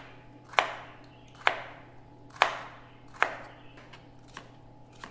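Kitchen knife chopping bitter melon on a plastic cutting board: a sharp chop about once a second, the last two fainter.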